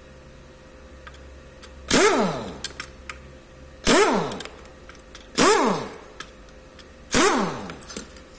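Air impact wrench loosening bolts on a Kia Rio engine during teardown, fired in four short bursts about every two seconds. Each burst starts suddenly and winds down in falling pitch.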